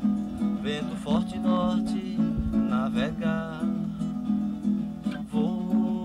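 Acoustic guitar strummed in a steady rhythm.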